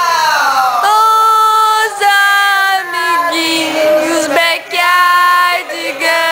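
A woman singing loud, long held high notes, each about a second, sliding down at the start and stepping to lower notes around the middle.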